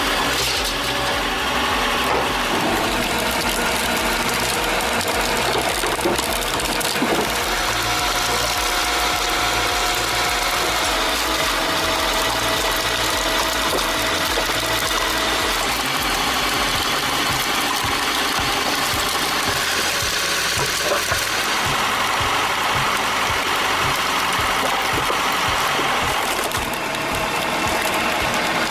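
Homemade log splitter running: a steady machine noise from its motor and splitting mechanism.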